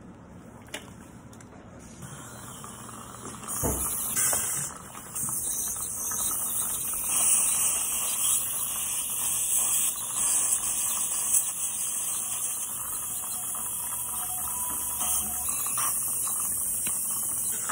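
Dental cleaning instruments hissing steadily: a high hiss that starts about three and a half seconds in and holds, rising and falling a little in level.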